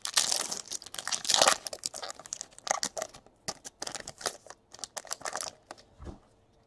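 A foil trading-card pack being torn open, its wrapper crinkling and tearing, loudest in the first second and a half. After that come quicker clicks and rustles as the stack of chrome cards is thumbed through, which stop about a second before the end.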